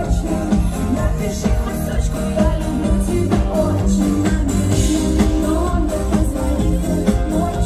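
Live band playing loud pop-rock music with a sung vocal over drums, bass and guitar, with heavy bass beats.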